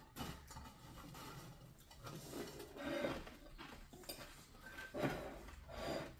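Tableware clinking during a meal: serving tongs and forks tapping on ceramic plates and a glass dish, a scattering of light clicks with a few louder taps.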